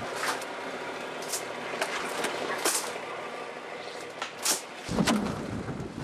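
Crushed ice being scooped and scraped in among freshly caught skates in a boat's fish hold: a run of short, irregular scraping hisses over a steady background rumble.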